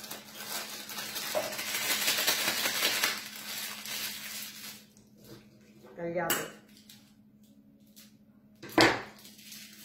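Plastic piping bag full of pastry cream crinkling and rustling as it is twisted shut, for about the first five seconds. Near the end, one sharp click as scissors snip off the bag's tip.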